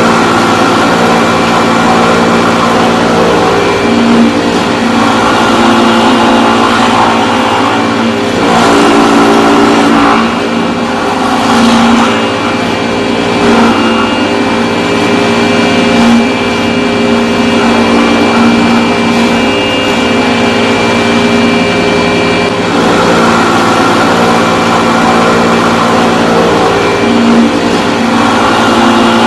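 Motor-driven carving tool cutting into timber, running continuously with its pitch shifting slightly as the load changes.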